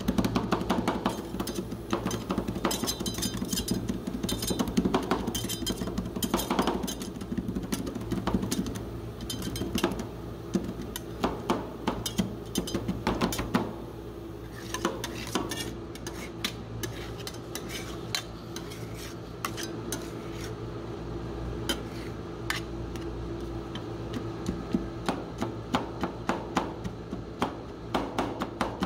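Two metal spatulas chopping and tapping rapidly against a rolled-ice-cream machine's stainless-steel cold plate, working chocolate pieces into the liquid cream base as it freezes. There is a steady low hum underneath. The tapping thins out around the middle and picks up again near the end.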